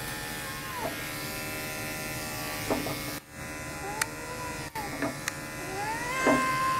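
Electric pet clippers buzzing steadily as they shave through matted cat fur, while the cat lets out three drawn-out, rising-and-falling yowls, the longest near the end: a cat in discomfort as the mats pull on her skin.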